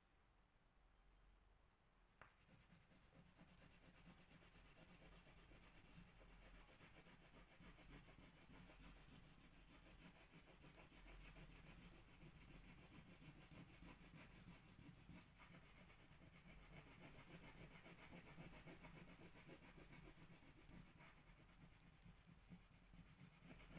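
Faint, continuous scratching of a colored pencil shading on paper in quick back-and-forth strokes, starting about two seconds in.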